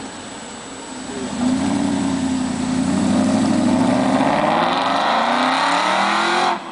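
Aston Martin V8 Vantage Roadster's V8 engine pulling away and accelerating, its note rising steadily in pitch for several seconds, then cutting off suddenly near the end.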